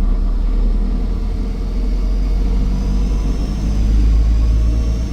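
Optare Versa bus's Mercedes-Benz OM934 5.1-litre four-cylinder diesel pulling under a steady low rumble, with a high turbo whine coming in about halfway through, rising and falling with the boost.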